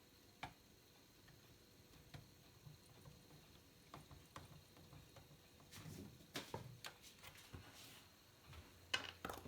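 Faint, scattered small clicks and light taps, a few at first and more frequent in the second half: small screws being handled and driven in to mount a USB audio module in an amplifier case.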